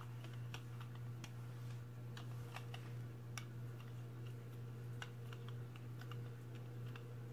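Rubber brayer rolling over wet acrylic paint on a gel printing plate, giving a faint, irregular crackle of light tacky clicks as it goes back and forth. A steady low hum runs underneath.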